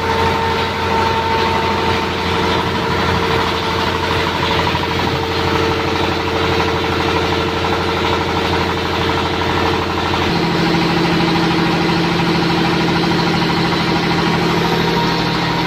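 29-horsepower Peter diesel engine running steadily, belt-driving a flour mill (atta chakki) and a tube-well water pump: a continuous engine hum over the mill's whirring. About ten seconds in, the tone of the hum changes.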